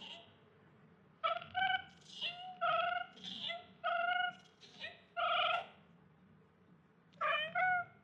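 A cat meowing: a quick run of short, high meows, then two more near the end.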